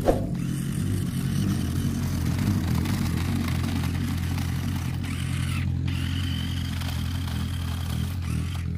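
Toy RC rock crawler's electric motor and gearbox whirring steadily as its wheels spin and throw sand, with a sharp click right at the start.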